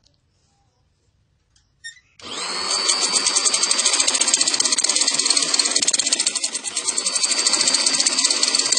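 Electric sewing machine stitching through fabric, starting about two seconds in with a rising motor whine, then running steadily at speed with a fast, even needle clatter.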